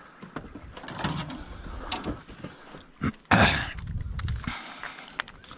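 Scattered knocks and clatter of handling on a fishing boat while a hooked peacock bass is brought in. About three seconds in there is a sharp knock, then a loud, short rushing burst.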